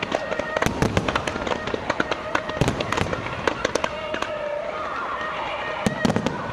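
Fireworks going off in quick crackling volleys of sharp bangs, thinning out about four seconds in and picking up again near the end.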